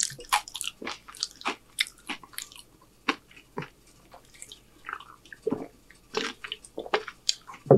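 Close-miked mouth sounds of eating: wet chewing clicks and smacks. In the second half come gulps and swallows as soda is drunk from a can.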